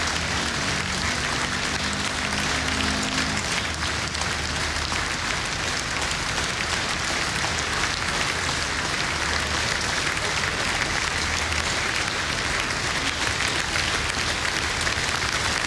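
Large crowd applauding steadily and at length, a dense, unbroken clapping.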